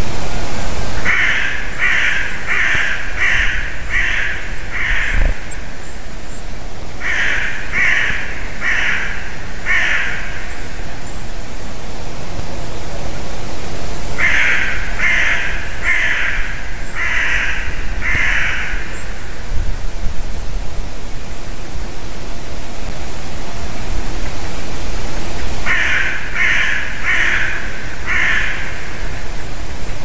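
A crow cawing in four runs of four to six harsh caws, about one or two caws a second, with pauses of several seconds between runs, over a steady background hiss.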